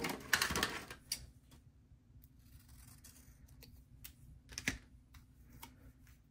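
Scissors snipping through sticker paper in the first second, followed by light paper handling and a single sharp tap a little under five seconds in.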